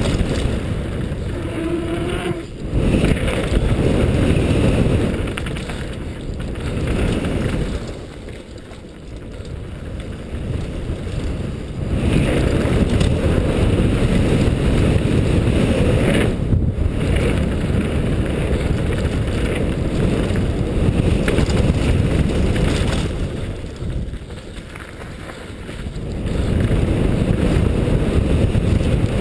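Wind rushing over the helmet-mounted GoPro's microphone mixed with the rumble of a 2010 Cove Shocker downhill mountain bike's tyres on a dirt trail at speed. The rush eases twice as the pace drops, and a couple of sharp knocks come from the bike over bumps.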